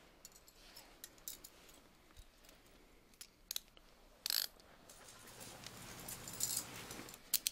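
Metal handcuffs clicking and ratcheting shut: a scatter of short metallic clicks, a brief rasp a little past halfway, and a sharp pair of clicks near the end.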